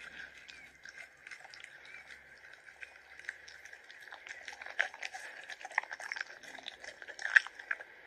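Husky puppy lapping milk from a bowl: a run of quick, irregular wet licking clicks, with a few louder laps in the second half.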